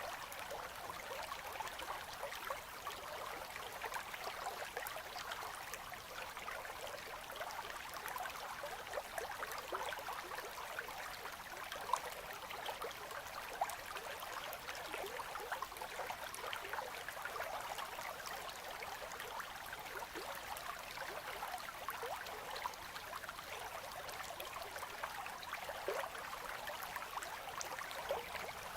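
Winter river current flowing past ice, a steady gentle burbling and trickling of water with many small quick splashes and no deep rumble.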